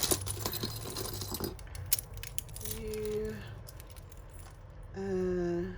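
Beads and small costume-jewellery pieces clinking and rattling together as they are handled: a quick run of light clicks through the first second and a half, then occasional single clicks.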